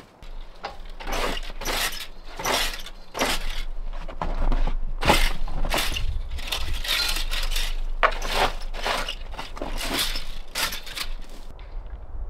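Snow being shovelled off a stone terrace: repeated sharp scraping, crunching strokes, about two a second, that stop shortly before the end.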